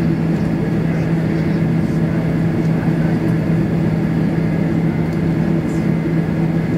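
Cabin noise of a Boeing 767-400ER climbing out after takeoff: its General Electric CF6-80C2 turbofans and the airflow make a steady, loud drone with a low hum under an even rush of air.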